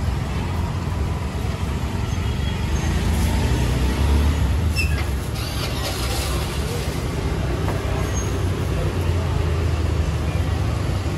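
Roadside street-market ambience: a steady low rumble of passing traffic, a little louder about four seconds in, with faint voices and a few light clicks.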